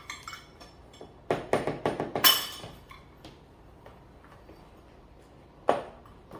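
Kitchen utensils and a flour sifter knocking and clinking against a mixing bowl while dry ingredients are sifted. A quick run of knocks about a second in, the loudest with a short rustling rush, then a single knock near the end.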